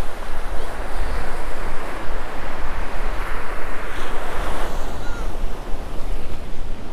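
Ocean surf breaking on a beach, with wind rumbling across the microphone. The wash swells for a second or two around the middle.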